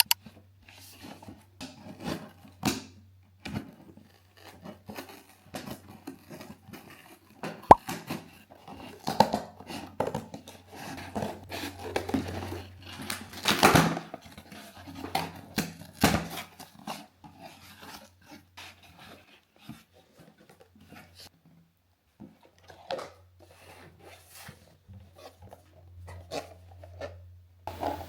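Small household objects being handled: scattered clicks, taps and light rustling or tearing, the loudest taps about 13 to 16 seconds in, over a faint low steady hum.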